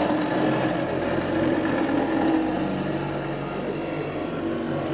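The electric motor of a PLC-driven X-Y table turning its threaded lead screw to carry the axis carriage along: a steady mechanical whir with a hissy edge that starts abruptly at the beginning.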